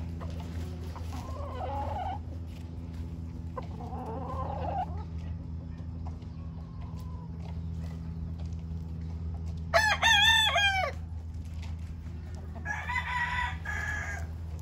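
Gamefowl in a pen: soft clucking calls, then one loud, short rooster crow with a wavering pitch about ten seconds in, and another call near the end, over a steady low hum.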